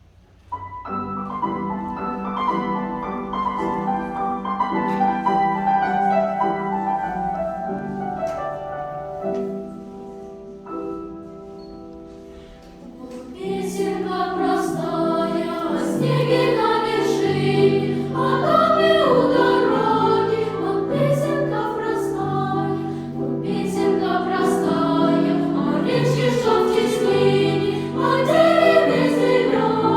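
A choir singing a simple song with instrumental accompaniment. An instrumental introduction plays for about the first twelve seconds, then the choir comes in about thirteen seconds in and sings over the accompaniment.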